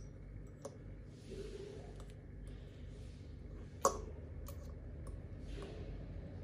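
Small metal air rifle valve parts handled on a tabletop: scattered light clicks and taps, with one sharp click nearly four seconds in, and a few faint hiss-like sounds in between.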